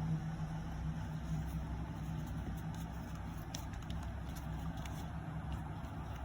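A steady low mechanical hum over a constant rumble, with a few faint clicks.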